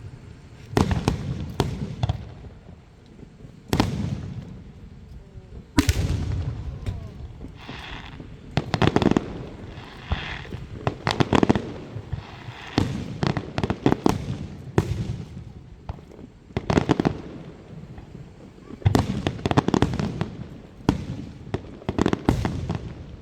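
Aerial fireworks going off: a long run of sudden, loud bursts at irregular intervals, some closely clustered, several trailing off in a crackle or rumble.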